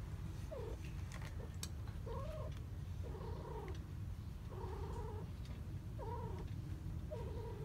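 Golden British Shorthair cats mating, with repeated short yowls coming about once a second over a steady low rumble.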